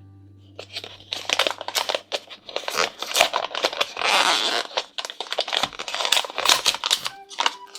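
Plastic or foil toy packaging crinkling and rustling as it is handled and torn open, in many quick irregular crackles with a longer tearing rustle about four seconds in. A low held music note fades out at the start.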